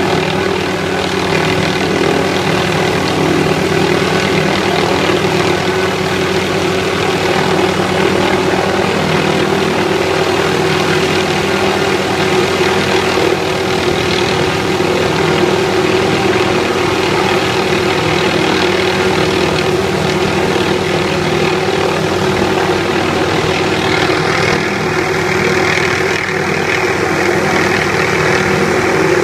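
Helicopter hovering, its turbine engine and rotor running steadily. Near the end the higher part of the sound shifts.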